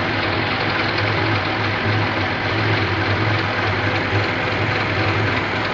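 Engine of a Toyota 4-ton forklift idling steadily, heard up close by the spinning alternator pulley and drive belt.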